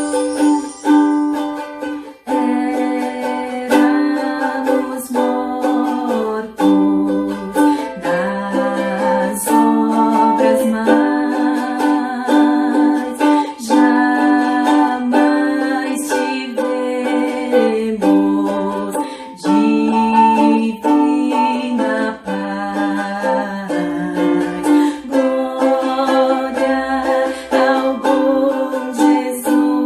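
Ukulele strummed in a steady rhythm, playing the chords of a hymn, with the chords changing about every second or two.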